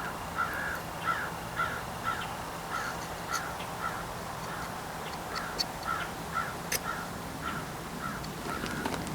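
A bird calling over and over in short, repeated calls, about two a second, with a faint steady low hum underneath and a few light clicks.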